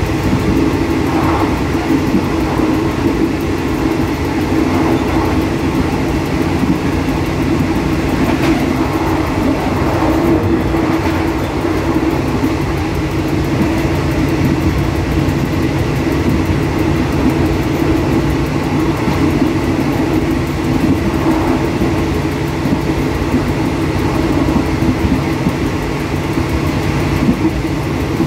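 Diesel express train running at just under 100 km/h, heard from inside the driver's cab: the steady running noise of the engine and the wheels on the rails, with a steady low hum.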